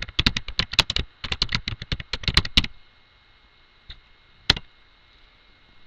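Typing on a computer keyboard: a quick run of keystrokes for about two and a half seconds, then two single clicks a little later.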